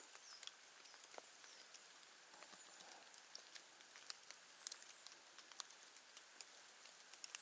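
Near silence with faint, irregular ticks of raindrops.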